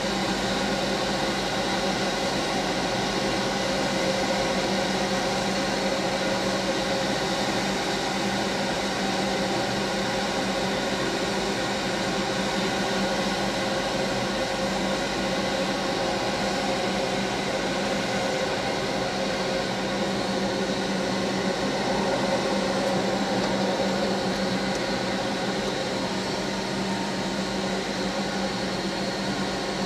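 Steady machine hum with a fan-like rush, heard from inside a car's cabin, holding an even pitch and level throughout.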